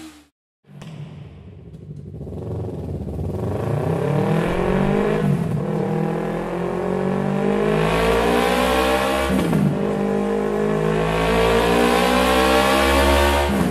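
Yamaha MT-03 engine revving through a MIVV MK3 full-system aftermarket exhaust. After a brief silence the engine rises sharply in pitch and is held at high revs, dips briefly about two-thirds of the way in, then climbs and holds again.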